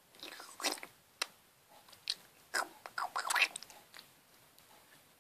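Purple glow-in-the-dark slime squelching and clicking as fingers squeeze and knead it. Irregular wet squishes and pops come thickest in the first three and a half seconds, then grow fainter.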